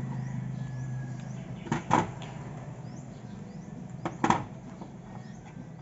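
Light knocks and clicks as 18650 lithium-ion cells are set into a digital weighing scale's housing to test the fit: two quick pairs, a little under two seconds in and again about four seconds in, over a low steady hum that fades in the first second or two.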